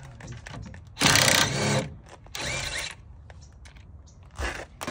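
Cordless impact wrench run in two short bursts, then a brief third, on the truck's front suspension, undoing the sway bar end link nut.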